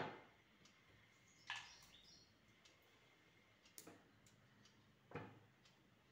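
Faint, scattered knocks and taps as small whole tender mangoes are pushed into a glass jar, fruit and hands bumping against the glass rim: about four short knocks a second or so apart.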